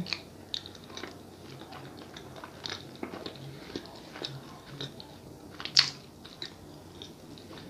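Close-miked chewing of a soft sonho (Brazilian filled doughnut) with goiabada guava-paste filling: a run of small mouth clicks and smacks, one louder click about six seconds in.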